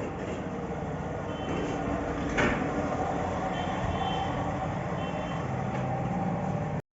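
A vehicle engine running steadily while a reversing alarm gives short high beeps on and off, with one sharp knock about two and a half seconds in. The sound cuts off abruptly near the end.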